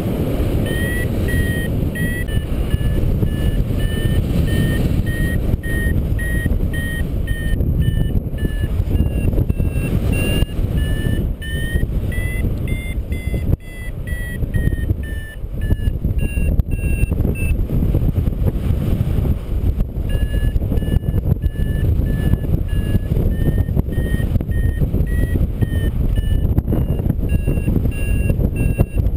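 Paragliding variometer sounding its climb tone: a steady string of short beeps whose pitch rises around the middle and falls again, pausing for about two seconds before starting again. The beeps signal that the glider is climbing in lift. Loud wind rumble on the microphone runs underneath.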